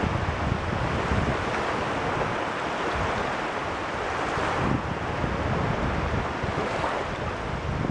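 Caspian Sea waves washing continuously on the shore, with wind rumbling on the microphone.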